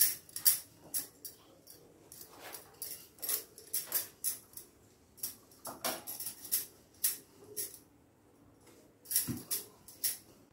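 Wooden rolling pin rolling out wheat-flour dough on a floured board: irregular clicks and knocks of the pin against the board, mixed with bangles clinking on the wrists, with a short lull about eight seconds in.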